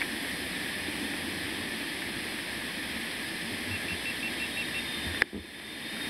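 Steady rushing hiss, with a short run of six faint high pips about four seconds in and a sharp click near the end, after which the hiss briefly dips.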